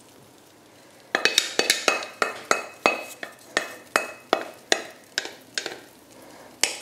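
Faint sizzle of egg, potato and onion frying in the pan. About a second in, a wooden spatula starts tapping sharply about three times a second, each tap with a short ring, to shake off the dripping egg. A last single tap comes near the end.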